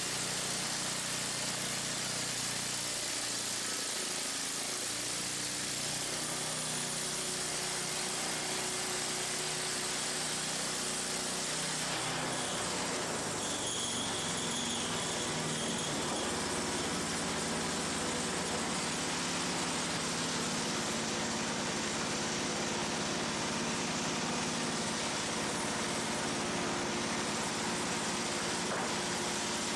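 Gas engine of a Harbor Freight portable band saw mill running steadily while its band blade saws lengthwise through an old barn beam. Its sound changes about twelve seconds in.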